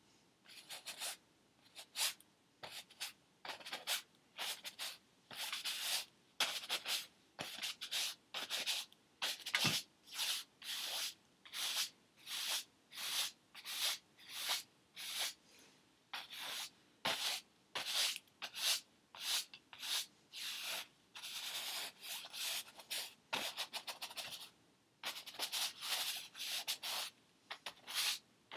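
Paintbrush strokes across a stretched canvas: a run of scratchy swishes, about one or two a second, with short pauses and a quick flurry of strokes near the end.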